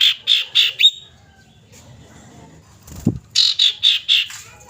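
Female common iora calling to draw a male: a quick run of about five harsh high notes, a pause, then a second run about three seconds in. A brief low thump comes just before the second run.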